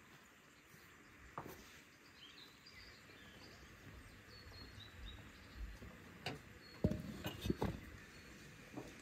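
Birds chirping faintly over quiet outdoor ambience, with a few sharp clicks and knocks, the loudest cluster about seven seconds in.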